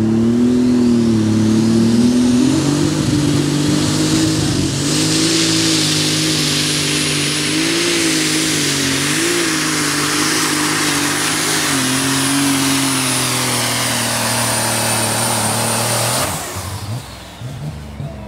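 Super stock pulling tractor's turbocharged diesel engine running loud and hard through a pull, its pitch wavering slightly. A high whistle joins about five seconds in. The engine sound drops off sharply about sixteen seconds in.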